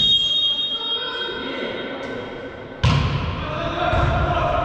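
Indoor volleyball play in an echoing gym: a referee's whistle at the start, then ball strikes: a sharp hit about two seconds in and a loud thud near three seconds. Players' shouts follow.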